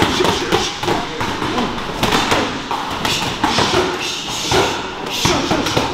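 Irregular thuds and slaps of kicks and punches landing on gloves, arms and shins as several pairs drill strikes and blocks at once, with voices in the background.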